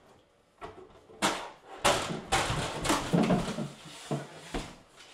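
Heavy sheet-metal inverter cabinet knocking and scraping against its steel wall-mount bracket and the wall as it is lifted, with a series of loud clunks and knocks from about a second in.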